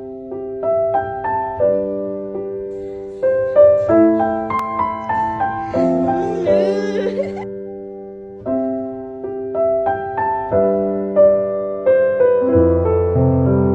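Background music: a slow piano melody, each note struck and left to ring, with deeper bass notes coming in near the end. A brief warbling sound rises over it about six seconds in.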